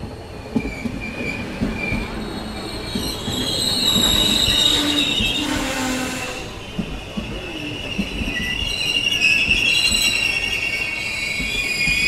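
Train brakes squealing loudly as the train rolls, several high shrill tones wavering and overlapping over a low rumble with scattered knocks. A rush of hiss comes in about four seconds in and fades by six, and the squeal swells again near the end.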